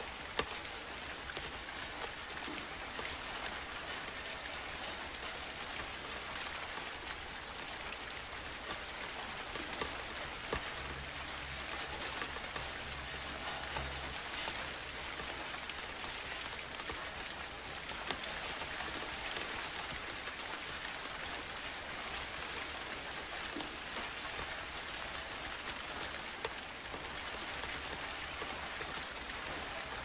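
Steady rain falling, with many individual drops ticking close by.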